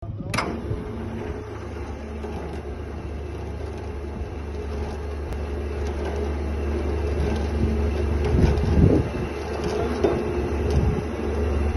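A machine or engine running steadily with a low hum, opening with a sharp click.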